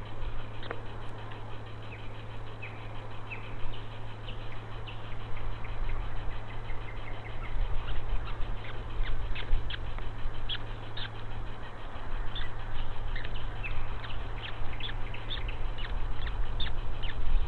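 Birds chirping: many short, high chirps that come thicker and louder about halfway through, over a steady low hum.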